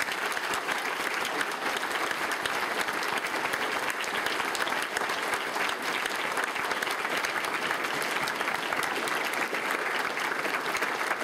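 Congregation applauding steadily in a church, a dense, even clapping of many hands.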